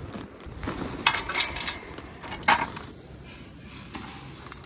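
A few quick clinks and rustles of barbecue gear being handled: a metal tool and a plastic bag. They come in a cluster about a second in, with one sharper clink around the middle.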